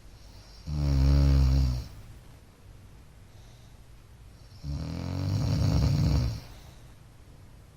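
A man snoring in his sleep: two loud snores about four seconds apart, the second one longer.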